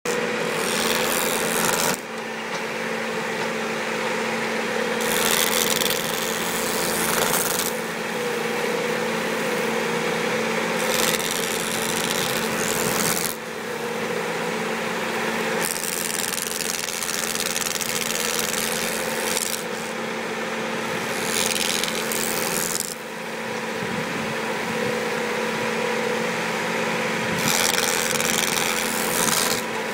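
Tractor-mounted Star Strimmer fence trimmer running continuously, its rotating strimmer heads cutting grass along a wooden post-and-rail fence over a steady machine drone. A harsher, hissing cutting sound swells for a couple of seconds at a time, about six times, as the heads work the grass around the fence.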